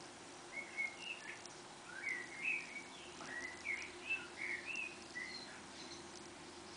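A small songbird twittering: a quick run of short, bending chirps that starts about half a second in and stops about five seconds in, over a faint steady hum.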